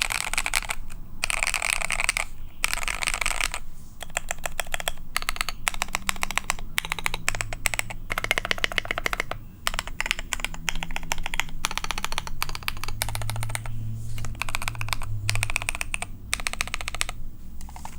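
Typing in bursts on a KBD67 Lite R2 mechanical keyboard with a brass plate, unlubed stock Gateron Cap Yellow V2 linear switches and KAT Specimen keycaps. The fast runs of deep-sounding keystroke clacks are broken by brief pauses every few seconds.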